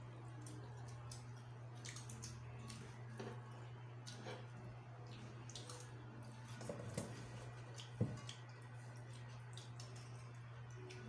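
Quiet eating at a table: scattered small clicks of a spoon and fingers against plates, with soft wet mouth sounds, over a steady low hum. One sharper clink comes about eight seconds in.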